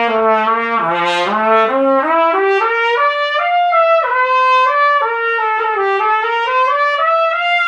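Harrelson VPS Summit One trumpet being play-tested, fitted with a number 6 receiver insert (60-thousandths gap, 344 venturi): an unbroken run of notes stepping up from low to high, dipping back about midway, then climbing again to a held high note at the end.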